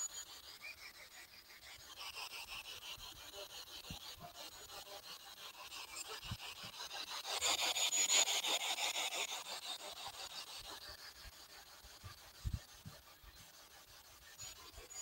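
SB11 spirit box sweeping through radio frequencies: a continuous, rapidly chopped static hiss that swells louder around the middle.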